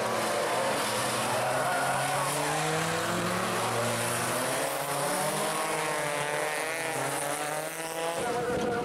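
Several rear-wheel-drive folkrace cars' engines revving hard through a bend, their notes rising and falling over one another as the cars slide. The sound changes abruptly a little after eight seconds.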